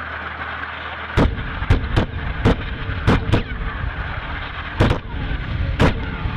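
About eight sharp reports of weapons fire at irregular intervals over a low, steady rumble.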